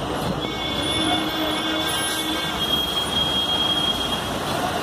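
Traffic noise of buses moving through a crowded bus stand: engines running under a dense, steady din. A thin high steady tone holds through most of it and fades near the end.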